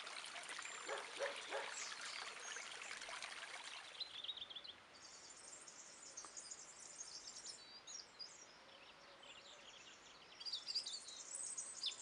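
Water trickling for the first few seconds, then a European robin singing: runs of high, thin notes about five seconds in and again near the end.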